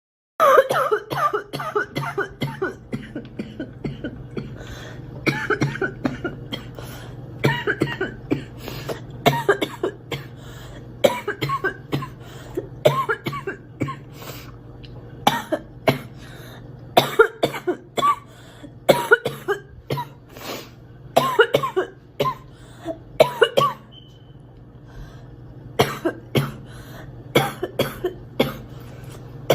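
A girl coughing over and over, in fits of several sharp coughs each, with a short pause about three-quarters of the way through.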